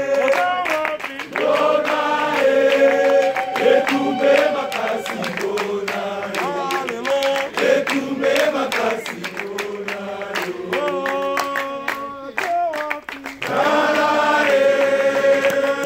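A group of people singing a chant-like song together, with hand claps throughout.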